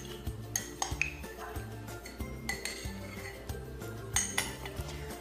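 Several sharp, ringing clinks of cutlery against dishes while ingredients go into a blender, over background music with a steady bass line.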